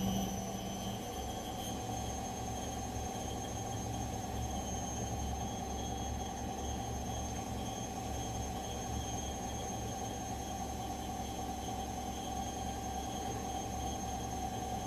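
Gorenje front-loading washing machine in its spin cycle: a steady low drum rumble under a motor whine made of several high tones, the highest rising slightly in the first two seconds and then holding level.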